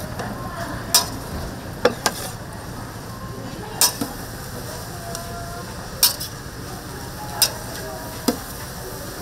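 Tteokgalbi (Korean short-rib meat patties) sizzling as they cook, with about seven sharp metal clacks of a cooking utensil scattered through it.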